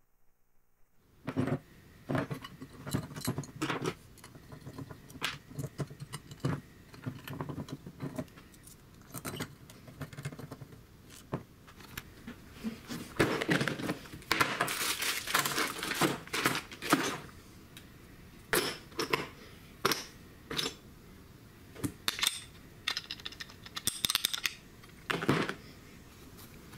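Small metal parts (gears and sprockets) clinking and clattering, with plastic bags crinkling, as a hand rummages through a plastic storage bin. The sounds start about a second in, and a longer stretch of rustling comes about halfway through.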